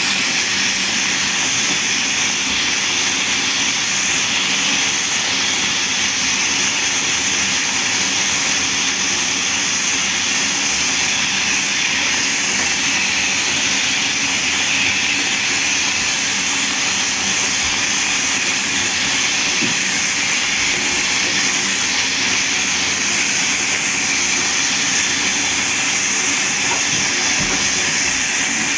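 Water running steadily into a bathtub, an even, loud hiss that does not change.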